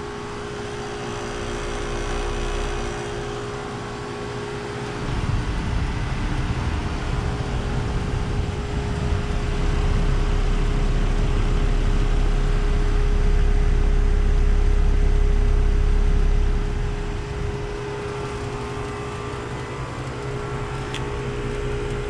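Carrier Performance Series heat pump outdoor unit running: a steady mechanical hum from its fan and compressor with a constant tone through it. A low rumble swells in the middle for several seconds, loudest while the microphone is at the side grille by the compressor, then drops back.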